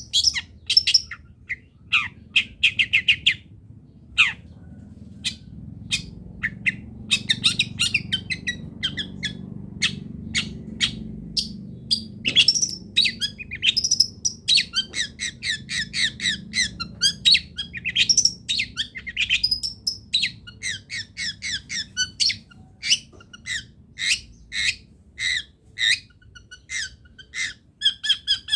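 Long-tailed shrike (cendet) singing a fast, varied chattering song of short notes and rapid trills, mixed with harsh squawking notes.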